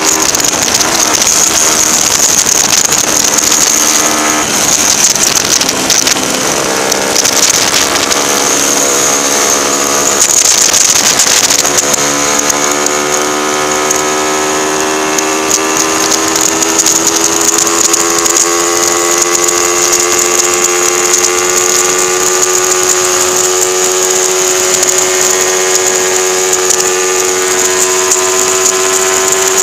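Race-prepared 1977 Honda 125 twin's parallel-twin four-stroke engine under way on track, heard from on board. It rises and falls in pitch through the bends for the first dozen seconds, then pulls in one long, slow, steady rise in pitch down the straight, over a steady rush of wind.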